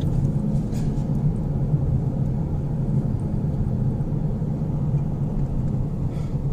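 Steady low road and tyre rumble heard inside the cabin of a car driving along.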